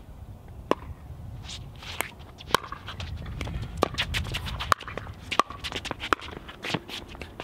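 Pickleball rally: paddles striking the hollow plastic ball in a string of sharp, irregularly spaced pops, thickest in the middle seconds, with footsteps shuffling on the hard court.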